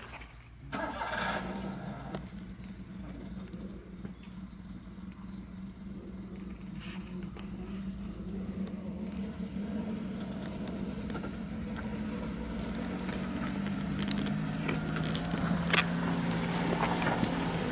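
A tractor engine starts about a second in and keeps running with a steady hum that slowly grows louder, with a few sharp clicks later on.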